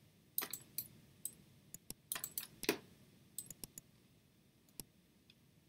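Computer mouse button clicking: short, light clicks in small irregular clusters, some in quick pairs, with a gap near the end.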